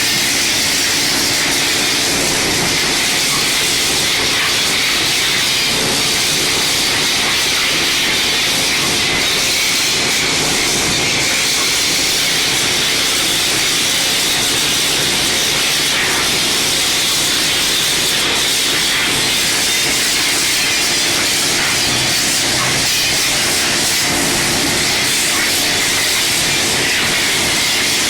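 Water spraying steadily against a concrete mixer as it is washed out: an unbroken loud hiss, with a faint steady hum underneath.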